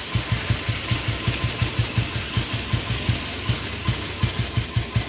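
Old Royal Enfield Bullet's cast-iron single-cylinder engine idling with an even, slow thump, about four to five beats a second, as the idle is being set on its carburettor.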